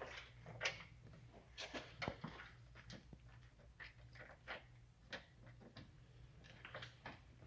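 Faint, irregular clicks and light rustles of hands handling parts, over a low steady hum.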